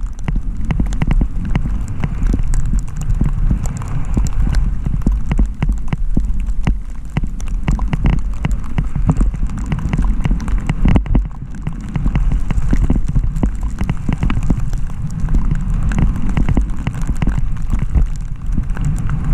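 Skis scraping and chattering over thin early-season snow, with a dense run of sharp clicks and knocks as the edges and bases hit hard bumps and rocks. Under it is a constant low rumble of wind on the microphone.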